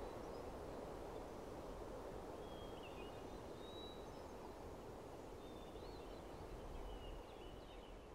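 Faint outdoor ambience: a steady low rush of air, with a few small birds chirping faintly from a couple of seconds in.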